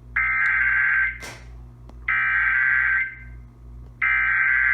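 Emergency Alert System SAME header played through a television: three bursts of digital data tones, each just under a second long and about a second apart. It marks the start of an emergency alert, here a child abduction alert coded as a Law Enforcement Warning.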